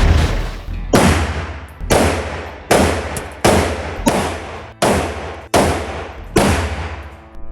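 .50 Beowulf AR pistol firing a rapid string of about eight shots, roughly one a second. Each bang rings out in a long echo off the walls of the indoor range.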